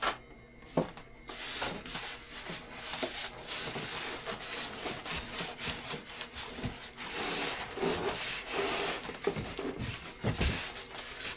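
Styrofoam and cardboard packing rubbing and scraping, squeezed as a tightly packed appliance is pulled out of its box: a continuous scraping with many small crackles, starting about a second in after a single click.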